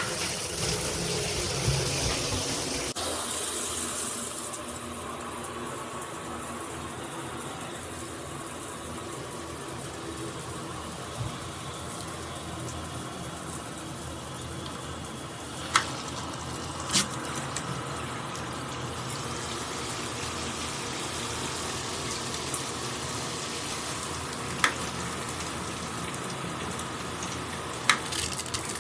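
Water spraying steadily from a GRICH 2-in-1 rain and handheld shower head, the sound shifting about three seconds in. A few sharp clicks stand out in the second half.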